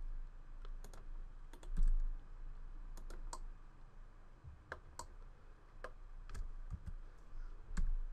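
Computer keyboard keys and mouse buttons clicking at an irregular pace, some in quick pairs and clusters, over a steady low hum.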